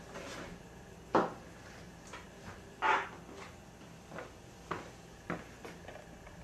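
Homemade proton pack prop being handled and turned on a wooden table: two clear knocks about one and three seconds in, then several fainter clicks.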